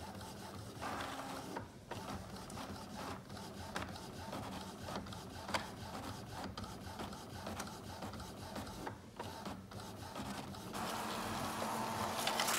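Epson ET-3760 EcoTank inkjet printer printing a nozzle check page: steady mechanical whirring with repeated clicks as the print head works and the sheet feeds out.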